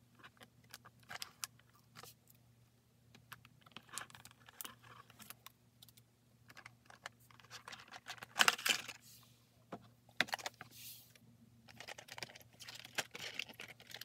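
A clear plastic blister tray of toy figures being handled and worked loose from a cardboard book: scattered clicks and taps, with stretches of thin plastic crackling, loudest a little past halfway.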